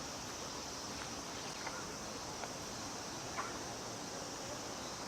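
Cicadas calling in chorus, a steady high buzzing with no break, and a brief tap about three and a half seconds in.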